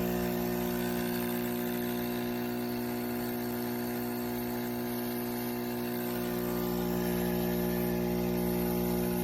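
KEENSTAR espresso machine's pump running with a steady electric hum while brewing.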